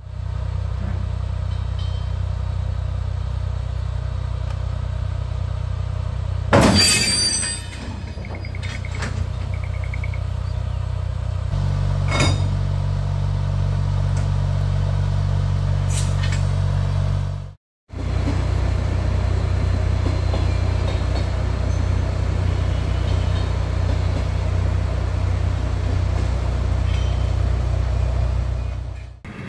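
Locomotive of a standing freight train running with a steady low hum, with a loud burst of air hiss about seven seconds in. The hum's note shifts slightly about twelve seconds in, and a few faint clicks come later.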